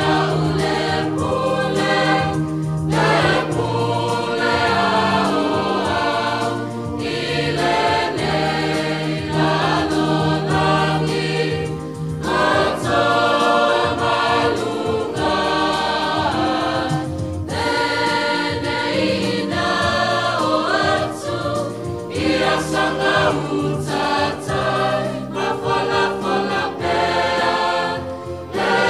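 Samoan church choir singing a hymn together, phrase after phrase with brief breaks between them.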